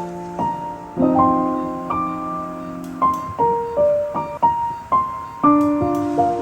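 Background piano music: a slow melody over chords, with notes struck one or two a second and left to ring and fade.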